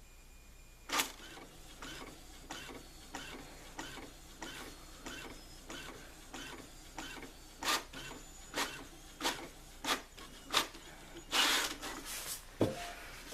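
Brother inkjet printer printing a test page after a head cleaning: the print-head carriage clicks back and forth at a steady pace of about one stroke every half second or so, growing louder near the end, with a longer mechanical rush about two-thirds of the way through the last seconds.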